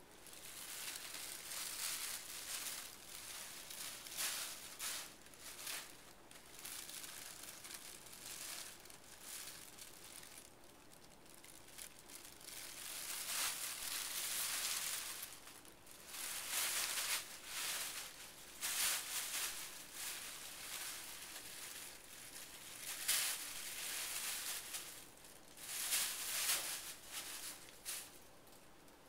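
Thin plastic bags crinkling and rustling in irregular bursts as a cat moves about in them.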